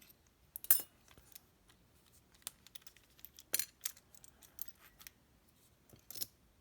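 Small metal lock parts clicking and clinking against each other and the desk as a lock is taken apart: scattered light taps, the loudest just under a second in and another about three and a half seconds in.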